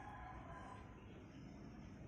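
Near silence: faint background noise.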